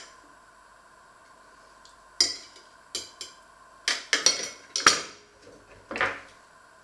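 Metal cutlery clinking and scraping against a ceramic plate: about seven sharp clinks spread through the second half, the loudest near the middle.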